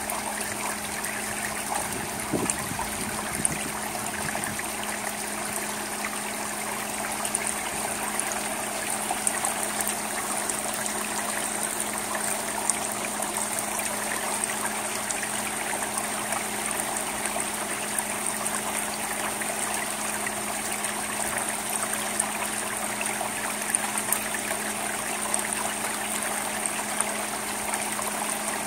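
Steady rain on a wet asphalt-shingle roof and gutter: a dense, even patter with scattered louder drop taps.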